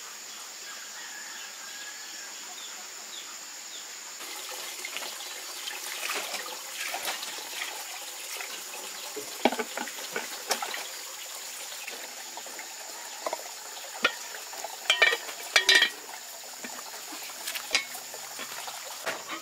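Water running from a pipe into a plastic bucket, with scattered knocks and clinks of a metal cooking pot and its lid being washed, loudest in the middle of the stretch.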